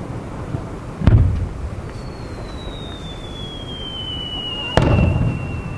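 Fireworks display: two aerial shells burst with loud booms, about a second in and near the end, each with a rumbling tail. Between them a long thin whistle slowly falls in pitch.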